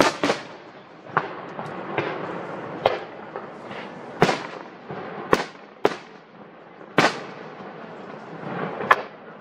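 Aerial fireworks shells bursting one after another: about ten sharp bangs at irregular intervals, each trailing off in an echo.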